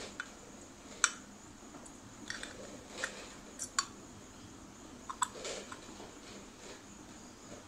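Light clicks and taps of a metal carburetor body and its small parts being handled and turned in the hands, with one sharper click about a second in.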